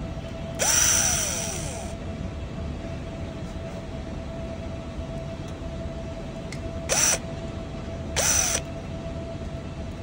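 Cordless drill/driver spinning in short bursts as it drives in the small mounting screws of a gas water heater's micro switch. There is one burst of over a second near the start, then two quick ones about seven and eight seconds in, each rising and falling in pitch as the motor spins up and stops. A steady faint hum runs underneath.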